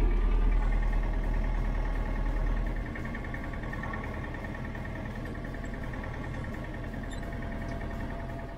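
Case 1394 tractor's diesel engine running, heard from inside the cab. It is louder for the first three seconds, then settles to a steady note.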